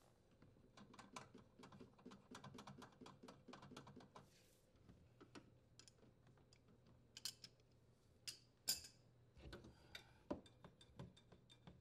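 Faint clicking and light metal taps of hand tools, a quick run of small clicks for the first few seconds, then scattered taps with a few sharper knocks: the dishwasher's leveling legs being turned to lower the appliance.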